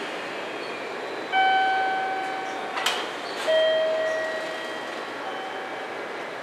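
A two-note signal, a higher tone followed by a slightly lower one, each fading over about a second and a half, with a sharp click between them. Underneath runs the steady noise of a parked 311 series electric train.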